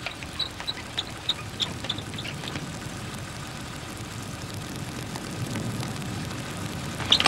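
Fire engine's engine running steadily at idle, a low even hum, with a few short high chirps in the first two seconds.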